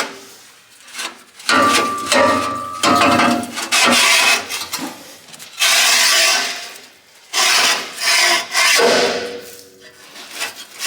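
Repeated rasping metal-on-metal strokes of about a second each, with a brief ringing tone near the start, from hand-tool work on an old traction-engine boiler tube being cut down and collapsed for removal.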